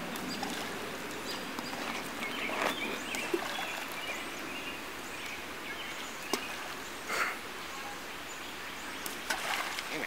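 Stones thrown into a still creek pool, splashing a few times, with the largest splash near the end, over a steady outdoor background hiss.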